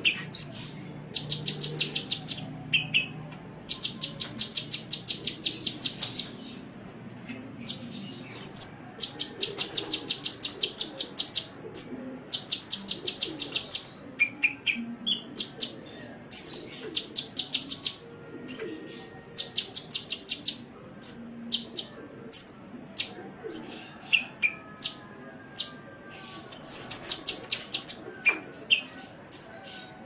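Sunbird song (the 'kolibri' of Indonesian bird-keeping): fast trills of rapidly repeated high chirps in runs of a second or two, broken by sharp single high notes.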